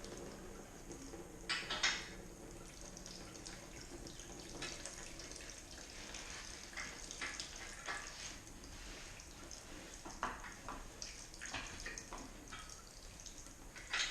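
Scattered metal clinks, knocks and rattles as a heavy 4L80E transmission is tilted upright on a rotating stand and its locking pin is worked into place. There is a louder clank about two seconds in and another near the end.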